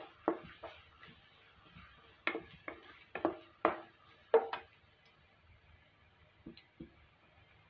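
Wooden spatula knocking and scraping against a metal pan while stirring diced carrots frying in oil: a run of about eight sharp taps over the first four and a half seconds, then two softer taps near the end.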